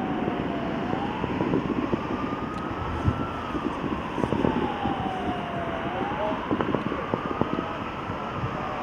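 A wailing tone that slowly rises and falls, about once every five seconds, over a steady noisy background with scattered small pops from the fireworks show.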